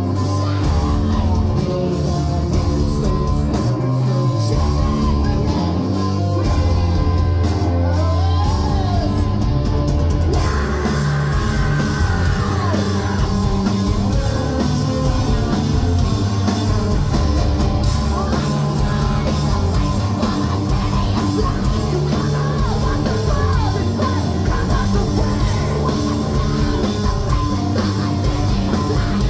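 Live post-hardcore rock band playing loud, with distorted guitars, bass and drums under shouted, screamed vocals. The sound changes about ten seconds in, when a new section starts.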